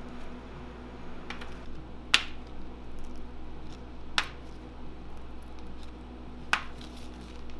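Sharp light clicks about every two seconds from macaron shells being handled on a metal baking tray while buttercream filling is piped onto them, over a steady low room hum.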